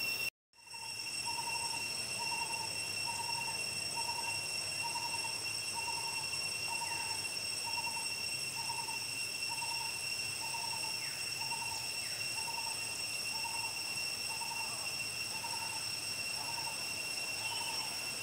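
A bird repeats a short low note at a steady pace, a little over once a second, with a few faint falling chirps. Behind it runs a steady high-pitched drone. The sound cuts out completely for a moment just after the start.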